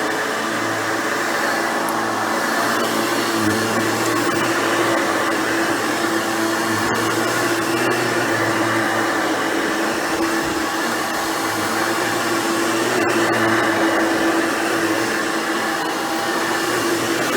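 Hoover Futura Dimension upright vacuum cleaner running steadily while vacuuming, a loud, even motor noise with a constant hum.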